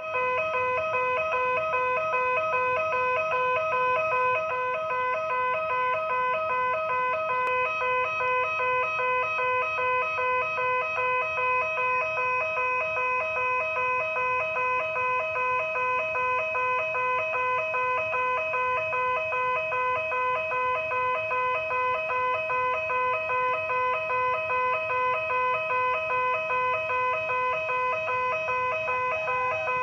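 Railway level-crossing warning siren sounding: an unusual electronic alarm of several steady high tones, pulsing in a fast, even rhythm without pause.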